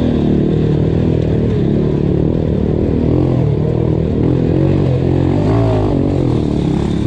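Honda Win 125 motorcycle's single-cylinder four-stroke engine running under way, its pitch rising and falling as the throttle is opened and closed.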